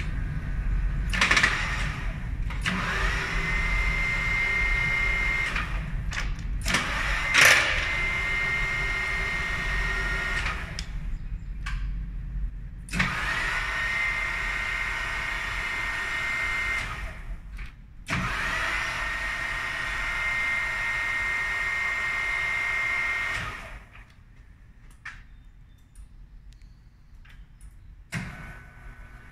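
Rambaudi milling machine running its power table feed in four separate runs of a few seconds each. Each run starts with a clunk as the feed is engaged, then a motor whine rises in pitch and holds a steady high tone.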